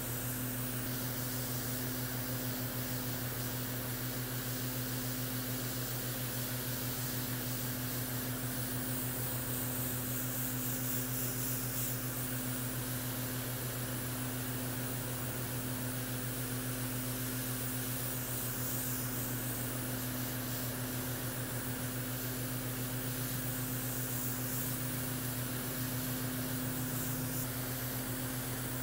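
Airbrush spraying paint with a steady airy hiss that swells and fades at times, over the steady low hum of its air compressor running.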